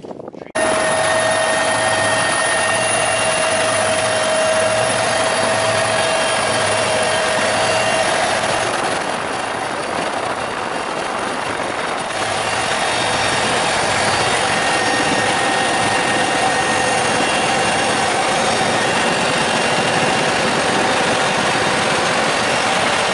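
Helicopter in flight heard from inside the cockpit: loud steady engine and rotor noise with a high whine and an even low pulsing from the rotor.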